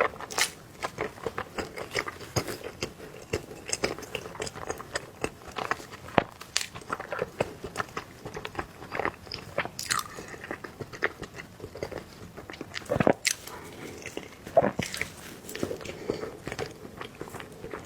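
Close-miked eating of soft cake: wet, irregular chewing and mouth smacks with many small clicks, a couple of louder bites past the middle.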